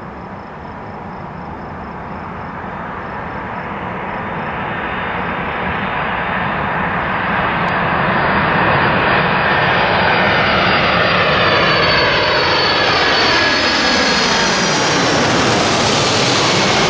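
Jet airliner on final approach, its engines growing steadily louder as it nears. It then passes low overhead, and several whining engine tones slide down in pitch over the last few seconds.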